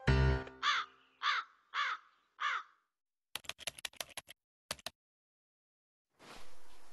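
A crow caws four times in quick succession, each call rising and falling, right after a closing music chord. Then a rapid run of sharp typing-like clicks, and faint room tone near the end.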